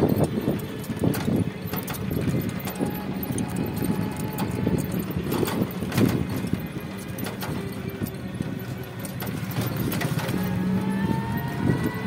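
Horse's hooves clip-clopping on a paved road as a horse-drawn cart rolls along, with many sharp, uneven clicks over the cart's steady rumble.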